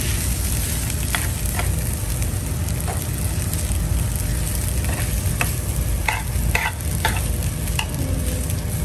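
Rice and chopped chicken frying in a pan on a gas stove, with a steady sizzle. A metal spoon stirs the food, scraping and knocking against the pan in short sharp clicks.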